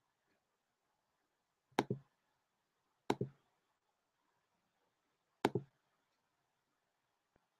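Three sharp double clicks on the computer, close to its microphone, each a press and a quick second stroke, spaced about a second and two seconds apart, then one faint tick near the end.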